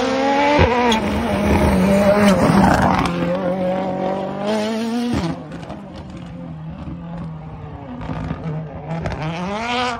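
Rally car engine at high revs, flat out, with sharp gear-change breaks about half a second in and about five seconds in, then running quieter with the revs climbing again near the end.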